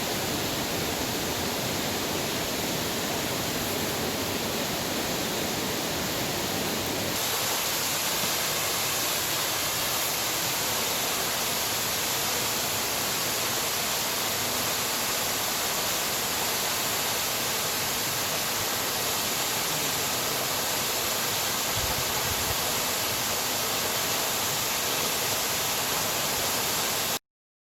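Waterfall: a steady rush of falling water. About seven seconds in it changes abruptly to a brighter, hissier rush, and it cuts off suddenly near the end.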